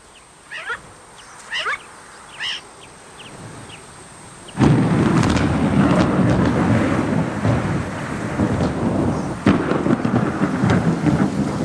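Thunder: a sudden loud clap about four and a half seconds in, then a long rumble, with a second sharp clap about nine and a half seconds in. Before the thunder, a few short high chirps.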